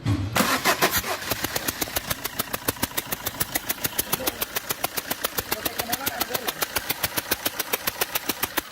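Fiat Multijet common-rail diesel engine starting and idling, with a sharp, regular puffing tick about seven times a second: combustion gas blowing past a failed injector seal, so one cylinder is losing compression. The engine stops at the very end.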